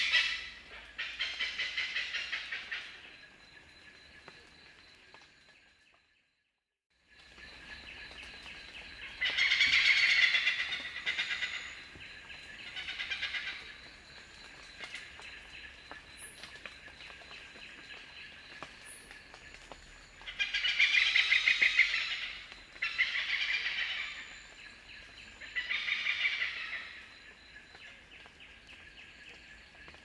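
Oriental pied hornbills calling: bouts of loud, shrill, rapidly repeated 'kaek-kaek-kaek' cackling notes, each bout lasting a second or two, with quieter stretches between. Several bouts come in the second half. The sound cuts out completely for about a second, about six seconds in.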